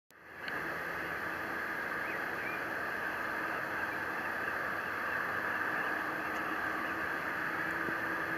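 Boeing 787's jet engines running at taxi power across the airfield: a steady rush with a low hum, fading in at the start.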